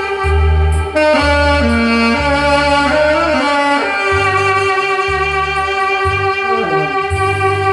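Saxophone playing a melody over a backing track with pulsing bass notes, settling into one long held note in the second half.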